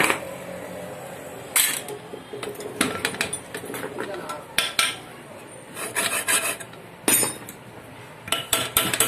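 Metal hand tools clinking and knocking against a cast-iron sewing machine head as its parts are worked on during an overhaul: irregular sharp metallic taps a second or so apart, with a quicker run of hammer taps near the end.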